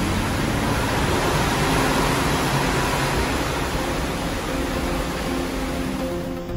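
Steady rushing noise of wind and sea heard from a ship's rail out on open water.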